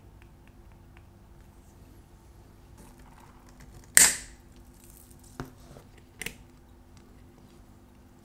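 Watch-bench handling sounds: one sharp, loud click about four seconds in, then two fainter clicks, over a faint steady hum.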